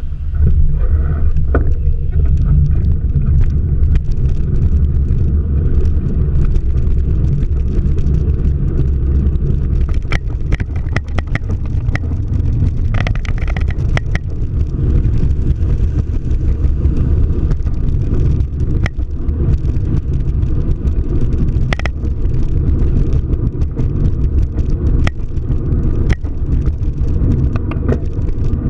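Steady low rumble of a car driving: road and engine noise, with scattered light clicks and knocks.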